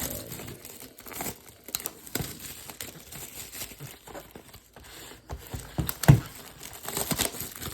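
Packaging on a sealed box of trading cards crinkling and tearing as it is handled, with irregular crackles and a louder knock about six seconds in.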